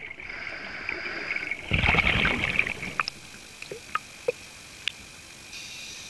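Scuba diver breathing underwater through a regulator: a short hiss of inhaling, then a gush of exhaled bubbles about two seconds in, followed by a few faint clicks.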